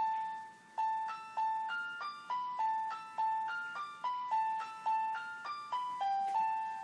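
A simple melody played one note at a time on a keyboard, each note struck and fading, about three notes a second within a narrow range of pitch, with a short pause near the start.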